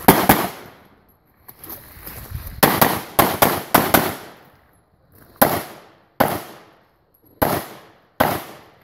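Glock 34 9mm pistol firing a string of shots, about eight in all, irregularly spaced from about half a second to a second and a half apart, each trailing off in a short echo.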